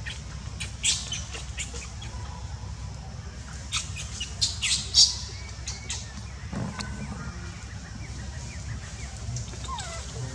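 Short, sharp high-pitched animal chirps and squeaks in two quick clusters, the loudest about five seconds in, with a brief falling call near the end.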